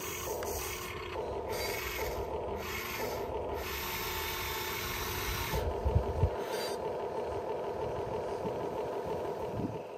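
Electric motor and gearing of a radio-controlled model whining steadily, with a low rumble underneath. A few sharp knocks come about six seconds in, as the rumble stops.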